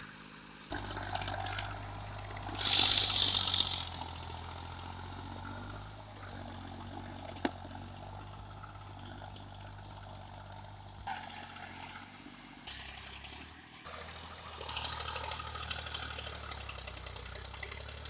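Indo Farm 2035 DI 35 hp diesel tractor engine running steadily under load while its rotavator churns through a flooded paddy field. A loud burst of noise comes about three seconds in, and a single sharp click a few seconds later.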